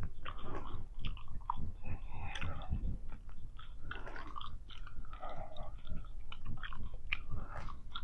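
Bubble gum (Big League Chew) being chewed, with an irregular run of mouth clicks and lip smacks.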